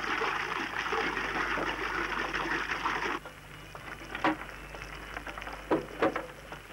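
Water pouring from a metal jerrycan and splashing onto dusty ground, cutting off abruptly about three seconds in. A few sharp wooden knocks follow as a wooden double door is pushed open.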